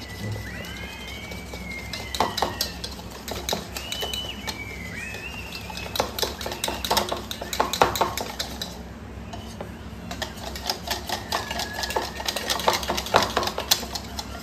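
Wire whisk beating a thin flour-and-water batter in a ceramic bowl, its tines clicking and scraping against the bowl in quick uneven runs with short pauses.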